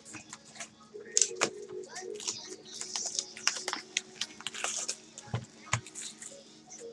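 Plastic shrink-wrap crinkling and tearing as a box of trading cards is unwrapped and its cardboard lid opened, with many quick crackles and scrapes, the loudest about a second in, and two soft thumps of the box about five and a half seconds in.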